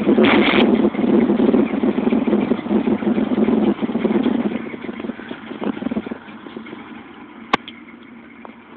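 Exhaust of a 5.0 HO V8 running in a 1989 Ford Mustang LX, heard up close from pipes cut open under the car, through a custom H-pipe and Flowmaster mufflers with no catalytic converters. The rumble is loud for about four seconds, then fades. A single sharp click comes near the end.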